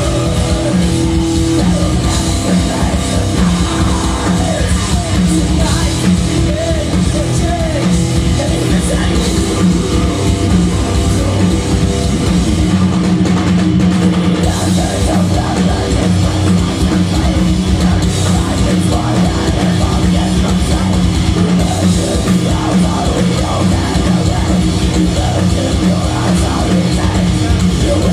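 Heavy metal band playing live: distorted electric guitars, bass and drum kit, loud and dense throughout, with vocals over them.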